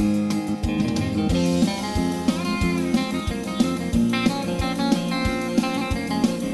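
Background music: guitar with a steady beat.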